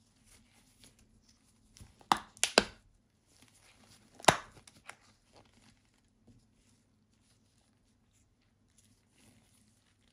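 Gloved hands handling and opening a leather-look watch box: a quick run of sharp clicks and rubs about two seconds in, one more loud click a little after four seconds, and faint rustling otherwise.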